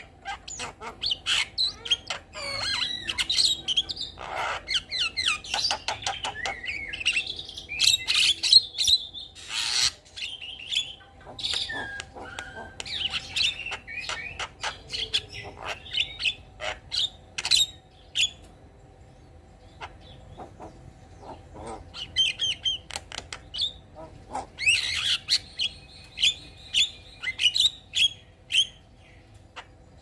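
Javan myna (white-vented myna) singing a long, varied song of sharp clicks and sliding whistled notes. The song eases off briefly past the middle, then ends with a run of evenly repeated notes.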